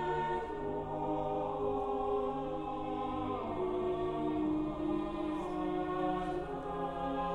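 Background music of slow, sustained choir-like chords, the held notes shifting every second or two.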